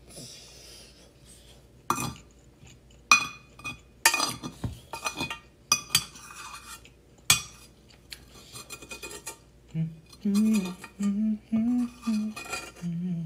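A spoon clinking and scraping against a bowl while scooping up the last spoonfuls of rice: a series of sharp clinks, several of them ringing. Near the end a voice hums a few short notes.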